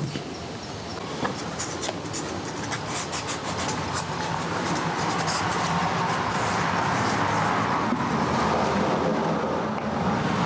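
Clamps and workpieces being handled and set, with scattered clicks and scrapes, over a steady rushing noise that builds about four seconds in.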